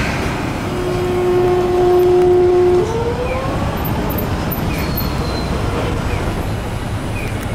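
Diesel city buses and cars moving through street traffic. A steady whine holds for about two seconds, then slides up in pitch and fades.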